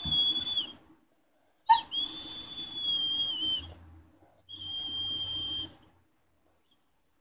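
Dog whining in three long, high-pitched cries at a nearly steady pitch, the middle one the longest. It is the nonstop crying of a dog with a severe neurological illness, which the owner could not tell was from pain or from fear.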